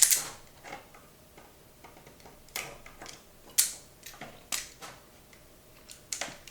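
Hand wire strippers and cutters clicking and snipping as 12-gauge power cord is split and its ends stripped: sharp, separate clicks at irregular spacing, about one a second.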